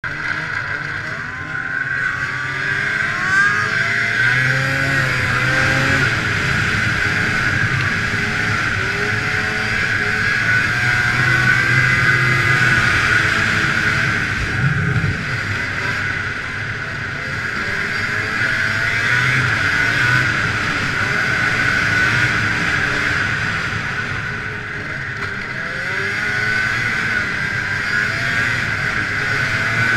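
A 2000 Arctic Cat ZL500 EFI snowmobile's two-stroke engine running under way, its pitch rising and falling as the throttle changes, heard from a helmet-mounted camera.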